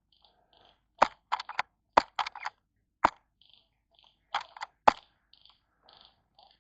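Airsoft guns firing: about a dozen sharp cracks, some single and some in quick runs of two or three, starting about a second in.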